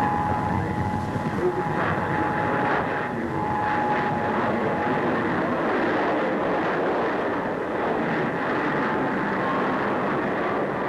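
English Electric Canberra's two Rolls-Royce Avon turbojets as the jet flies past low: a loud, steady jet rush with a thin whine. The whine fades about four seconds in, and another whine rises slightly near the end.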